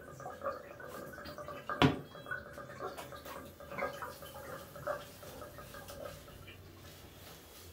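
Small splashes and drips of bathwater as a wet cockapoo is lathered and scrubbed by hand in a bathtub, over a faint steady hum. One sharp knock sounds about two seconds in.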